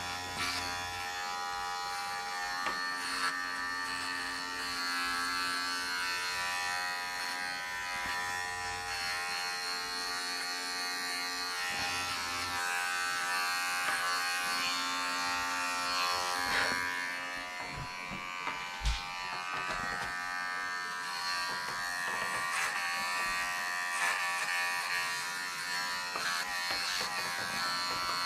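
Electric dog grooming clippers running with a steady buzz as they trim the hair between a dog's paw pads. A few brief knocks come about two thirds of the way through.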